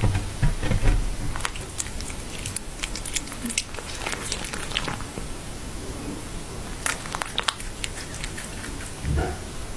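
A pet chewing crunchy food, with a string of sharp, irregular crunches.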